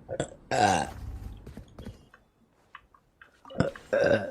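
A young woman burping loudly twice: a long burp falling in pitch about half a second in, and a second burp near the end. Faint clicks sound between them.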